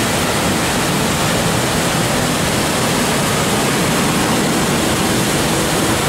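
Steady rush of falling water: an even, unbroken hiss.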